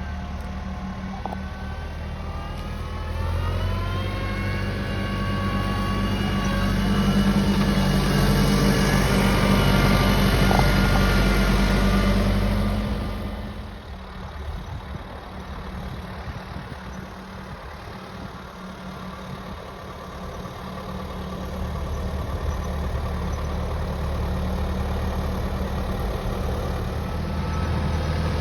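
Tractor engine running while ploughing. It grows louder, its pitch climbing, up to a peak, then drops away sharply about halfway through and builds up again near the end.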